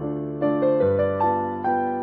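Background piano music: a slow melody of held notes over soft chords, with a new note struck every half second or so.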